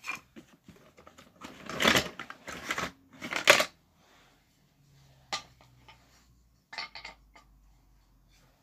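Wooden toy train track pieces being handled on carpet: scrapes, knocks and a few sharp clicks of wood on wood. Two louder scraping rustles come in the first few seconds, then scattered single clicks.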